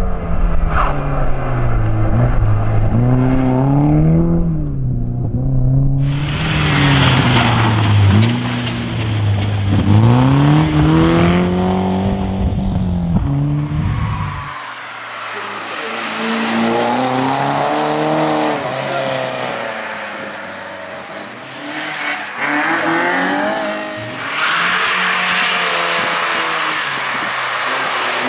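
Rally cars driven hard on a tarmac stage, engines revving high and dropping again and again through gear changes and braking as they pass, with some tyre squeal. The sound changes abruptly a couple of times, where one pass gives way to another.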